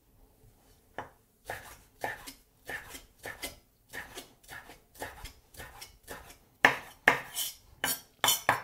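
Kitchen knife dicing tomato on a wooden cutting board: a steady run of chopping strokes, about three a second, starting about a second in and getting louder near the end.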